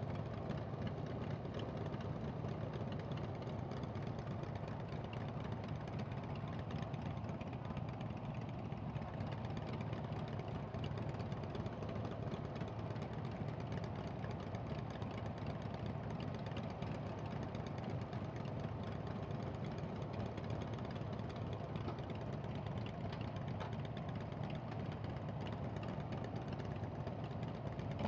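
Harley-Davidson air-cooled V-twin motorcycle engines idling steadily at a stop.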